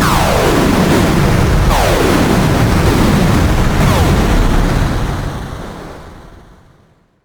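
Synthesized sci-fi space-battle sound effect: laser-weapon zaps, each a quick falling sweep in pitch, fired three times over a dense, loud rumble of explosions. It fades out over the last two seconds.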